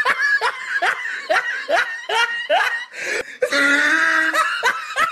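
A person laughing in a rapid string of short rising 'ha' sounds, about two or three a second, with a longer held note partway through.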